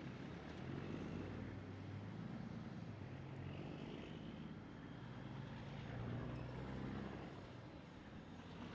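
Pickup truck towing an enclosed cargo trailer drives past at low speed and pulls away, its engine running steadily with a low hum that swells a couple of times.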